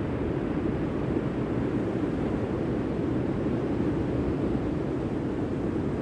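Steady low roar of ocean surf and wind on an open beach, even throughout, with no single wave crash standing out.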